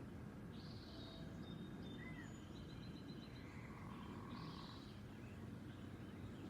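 Several wild birds calling faintly, short high chirps and a quick run of about six notes about three seconds in, over a steady low background rumble.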